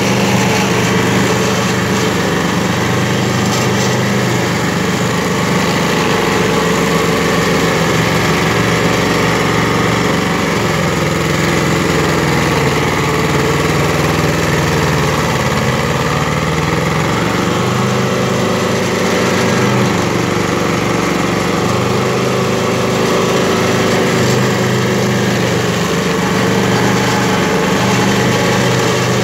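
Predator 28RX stump grinder's engine running under load as its cutter wheel grinds into a large sequoia stump, with a dense chipping noise over the engine note. The engine pitch sags and recovers a few times as the wheel bites into the wood.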